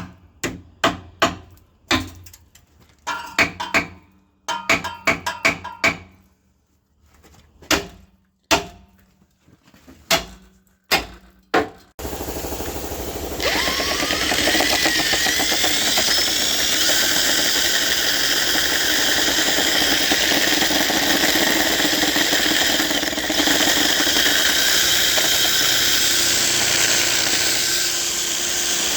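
Quick bunches of sharp hammer knocks with some ringing, then a handheld power tool starts with a rising whine and runs steadily at full speed.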